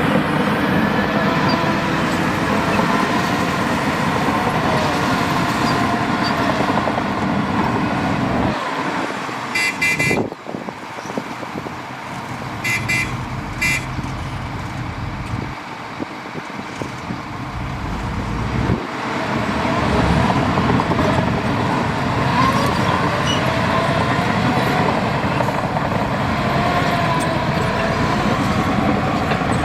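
Heavy diesel earthmoving machinery, a dump truck and bulldozer, running and working, its engine pitch rising and falling, with a lull about a third of the way in. Short high-pitched toots sound twice near the middle.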